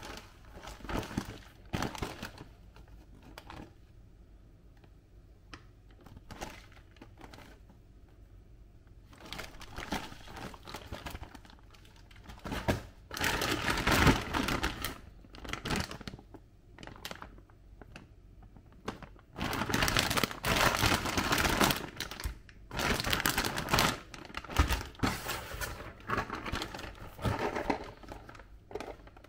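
Frozen-food packaging handled in the hands: a cardboard box turned over and a plastic bag of frozen calamari rings crinkling and rustling, in irregular bursts. It is sparse at first and louder and denser from about the middle on.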